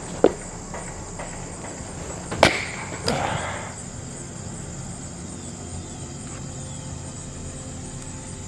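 Axe blows on firewood at a chopping block: a sharp crack just after the start and another about two and a half seconds in, the second followed by a brief rustling clatter. After that only a faint steady hum remains.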